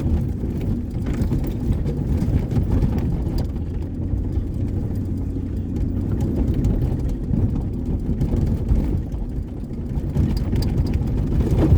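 Pickup truck driving on a rough dirt track, heard from inside the cab: a steady low engine and tyre rumble with light rattling.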